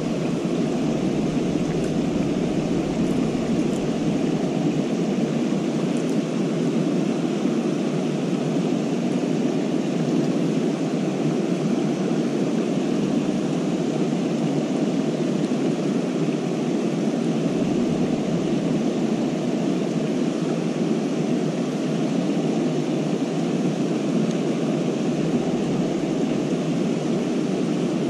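Steady rush of a flowing river, an even, unbroken noise.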